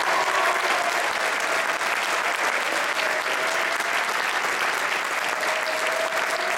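An audience applauding steadily: many people clapping together in a continuous patter.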